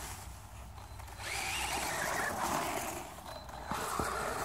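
Electric RC monster truck driving on snow: the motor whines up under throttle with a rush of tyre noise, about a second in and again near the end, with a few light knocks between.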